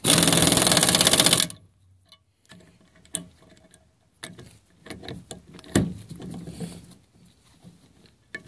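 Pneumatic impact wrench hammering for about a second and a half, running a ball tube lock nut down into a Ford 6.0L diesel oil rail. This is followed by light metallic clicks and taps as the socket is fitted onto the next nut.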